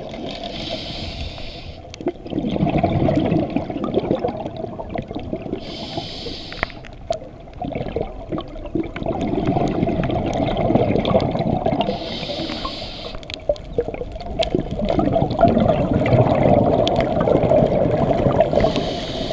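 Scuba breathing heard through a camera's underwater housing: a short hiss of inhalation through the regulator about every six seconds, four times, each followed by several seconds of low rumbling bubbles as the breath is exhaled.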